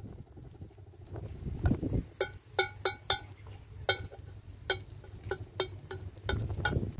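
Metal tongs clinking and tapping against a cast-iron griddle as a flatbread is worked on it: about ten sharp, ringing clinks, irregularly spaced, starting about two seconds in and stopping near the end.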